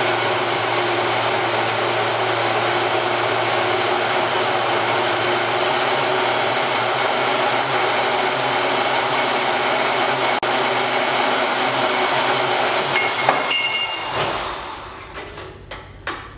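A power cutting tool's motor running steadily, then switched off and winding down about fourteen seconds in, followed by a couple of knocks.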